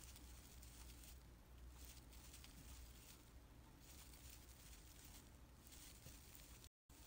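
Near silence: faint room tone of steady hiss and low hum, cut off completely for a moment near the end.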